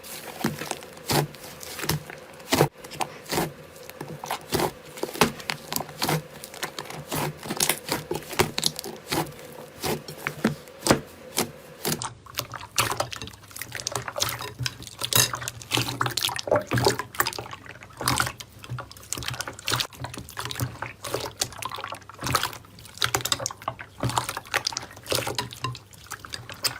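Slime being squished and poked by hand, a dense, irregular run of wet clicks and pops. About twelve seconds in the sound changes, with a steady low hum joining the clicking.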